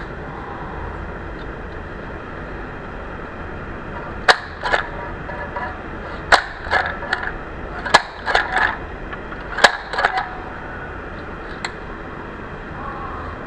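Handheld stapler-type mini sewing machine clicking as it is squeezed to make each stitch: about a dozen sharp metallic clicks in uneven groups, starting about four seconds in and stopping near the end, over a steady background hiss.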